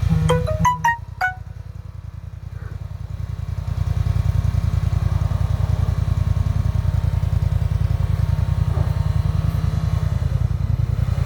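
Dacia Duster's engine running steadily while driving off-road, a dense low rumble that eases for a few seconds and then comes back up. A few short pitched notes sound about a second in.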